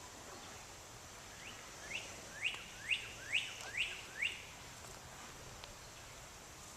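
A bird calling: a run of about six quick chirps, each sweeping sharply upward, about two a second, over a faint steady outdoor hiss.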